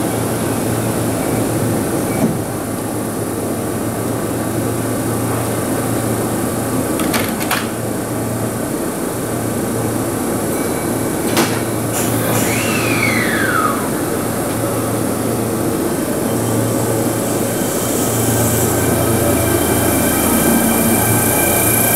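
Kintetsu 3220-series electric train standing at a platform with a steady low electrical hum. Its doors close with a couple of knocks, a short falling whistle follows, and near the end the train moves off, its running noise and motor whine growing as it pulls out.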